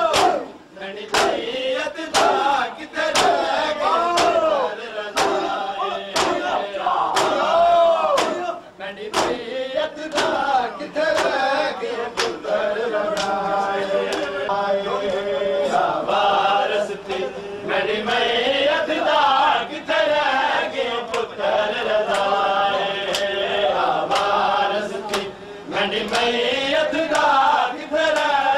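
A crowd of men chanting a noha together, with sharp, rhythmic hand slaps on bare chests (matam) about once a second.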